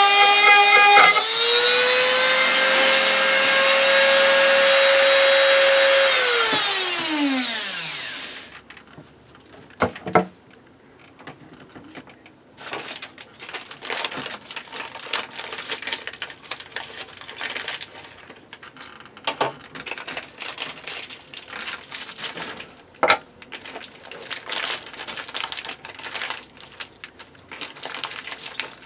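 Rotary tool whining at high speed against the wood. About a second in it jumps a little higher and runs free for several seconds, then is switched off and winds down in pitch over about two seconds. After that come rustling of a plastic hardware packet being handled and a few sharp knocks.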